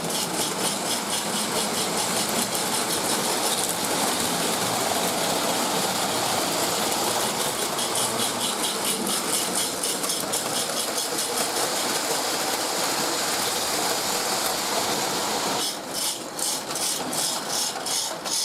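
Lionel MPC-era Pennsylvania 2-4-2 O gauge steam locomotive running with its mechanical steam-sound chuffer: a fast, even chuffing over the steady whir of the motor and the wheels on the track. The sound dips briefly near the end.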